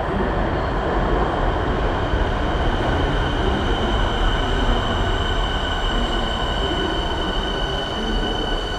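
Metro train running on the rails: a loud, steady rumble with a thin high whine that grows stronger about three seconds in.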